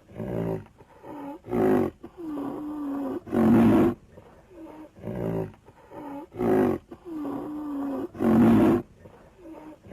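Ankylosaurus creature sound effect: a run of dinosaur calls, two short grunting calls, a longer, lower held call, then a loud bellow. The same sequence plays twice.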